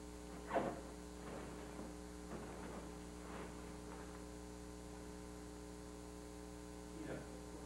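Steady electrical mains hum with several evenly spaced tones stacked over it, with a few faint, brief noises, the clearest about half a second in.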